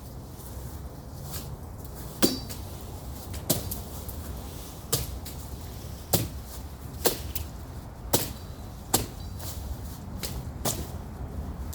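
Machete chopping through brush and small stems: about eight sharp strikes, spaced unevenly roughly a second apart.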